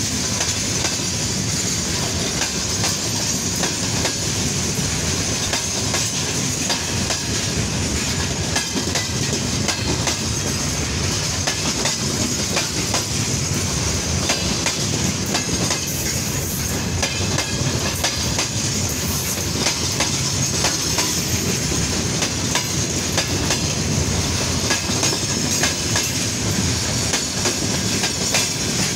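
Freight train of open gondola wagons rolling past, steel wheels clacking over an insulated bolted rail joint above a steady rumble of the wagons, with a steady high-pitched wheel squeal over it.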